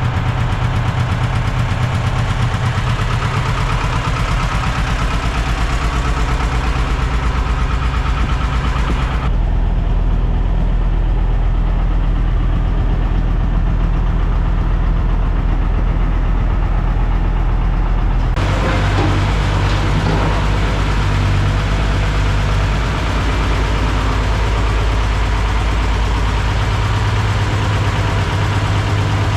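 A machine engine running steadily, its sound changing abruptly about nine seconds in and again about eighteen seconds in.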